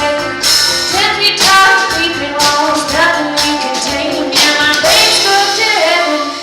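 A band playing a song, with a sung vocal line over the instruments, which include a banjo played through a wah-wah effect.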